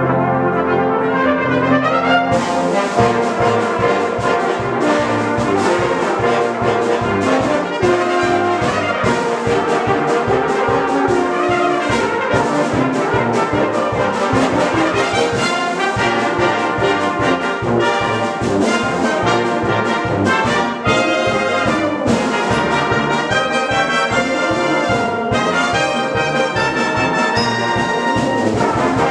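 Brass band of cornets, trombones, euphoniums and tubas playing an overture in full, with sustained chords at first and then percussion setting a quick, even beat from about two seconds in.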